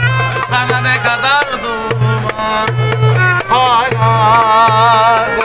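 Instrumental passage of a Turkish love song: a violin plays a wavering melody with vibrato over a backing track with a steady pulsing bass and a drum beat.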